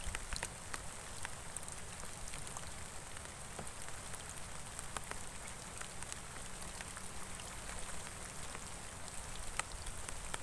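Rain falling on open water: a steady hiss dotted with many small, sharp drop ticks.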